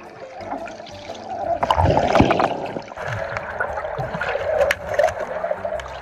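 Water gurgling and bubbling, heard underwater, with scattered sharp clicks. It swells loudest about two seconds in.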